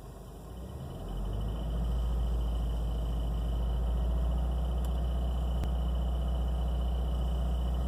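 2016 Subaru WRX's turbocharged flat-four engine running steadily at idle with a ticking noise, which the owner suspects comes from a failing clutch throw-out bearing.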